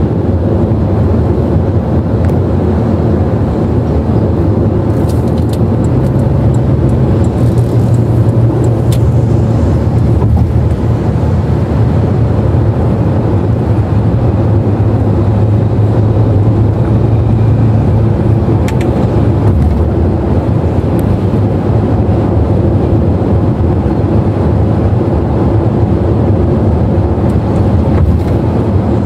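A car cruising at highway speed, heard from inside the cabin: a steady, loud low rumble of tyre and road noise with engine drone.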